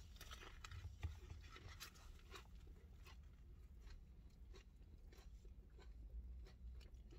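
A person chewing a bite of a crispy fried chicken sandwich, with faint, irregular crunches of the breading. The loudest crunch comes about a second in.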